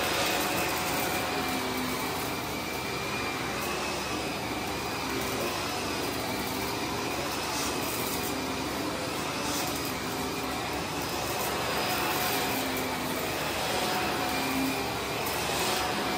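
Vacuum cleaner running steadily over carpet, a constant motor whine over the rush of air.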